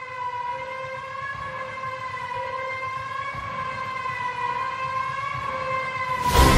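Background soundtrack music at a transition: one held, slightly wavering droning tone that swells slowly, then a sudden loud hit near the end as the full music comes back in.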